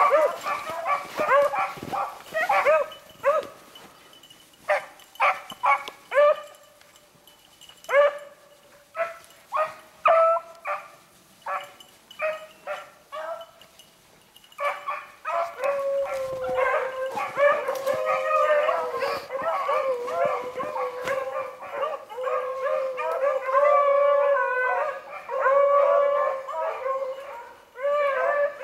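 Beagles baying on a rabbit's trail, a pack running a rabbit. At first there are separate, spaced bawls and chops, then from about fifteen seconds in several hounds give tongue together in a steady, overlapping chorus.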